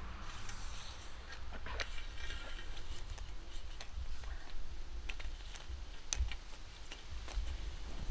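Scattered light metallic clicks and clinks of hand tools being handled while a motorcycle tire is worked on, over a low steady rumble.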